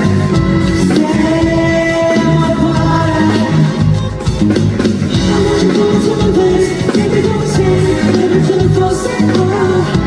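Pop song with a steady beat and a man's voice singing over the backing track, loud through the venue's sound system.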